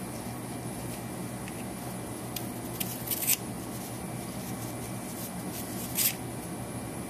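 Spring clasp of a 3D-printed nylon purse being worked open and shut: a few short clicks about three seconds in and one more about six seconds in, over steady room noise.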